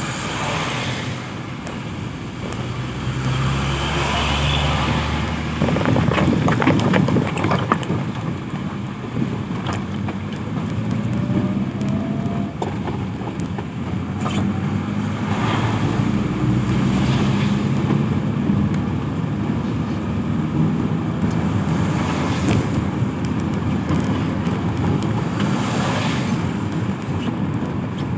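Road traffic: vehicle engines running steadily, with several vehicles passing one after another.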